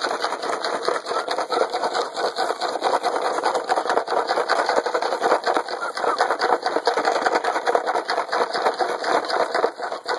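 Steady, dense crackling rustle of dry leaves and cloth as Belgian Malinois puppies scuffle and tug at a pant leg.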